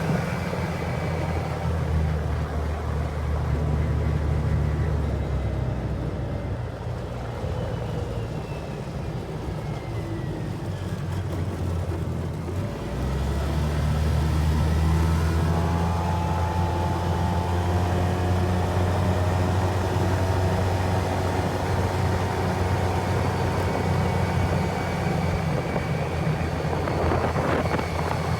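Polaris Ranger XP 700 utility vehicle engine running steadily. The engine note dips about twelve seconds in, then comes back up and holds.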